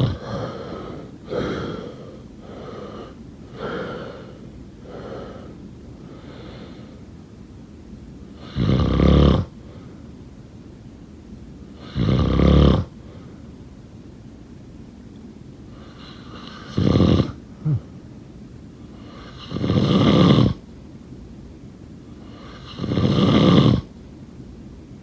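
Snoring: a run of lighter snores about once a second, then five loud, deep snores every three to four seconds, each lasting under a second.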